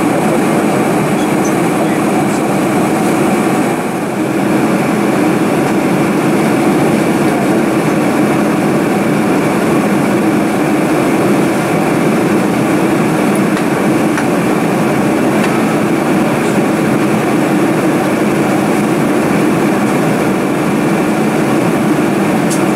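Steady cabin noise of a Boeing 747-400 airliner in cruise: the even rush of airflow and engines heard from inside the cabin by a window seat.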